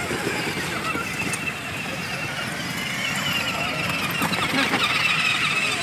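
Battery-powered children's ride-on toy cars driving over brick paving: a steady rumble of hard plastic wheels and small electric motors.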